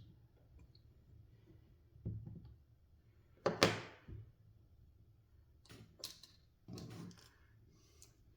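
A few separate knocks and clicks of small metal parts being handled while a ratchet torque wrench head is put back together, the loudest a sharp knock about three and a half seconds in.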